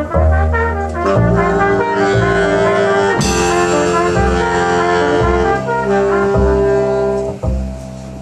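Jazz quartet of trumpet, tenor-range saxophone, double bass and drums playing the closing bars of a tune: the horns hold long notes together over deep bass notes, with a cymbal crash about three seconds in. The band stops about seven and a half seconds in and the sound dies away.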